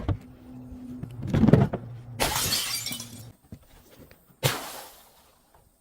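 Glass bottles shattering: a low thud, then a loud crash of breaking glass, and a second sharp crash about two seconds later that dies away.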